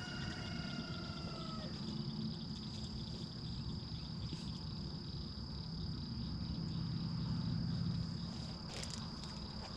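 A sheep bleats once right at the start, one call falling slightly in pitch and lasting under two seconds. A steady high-pitched insect drone and a low rumble run underneath.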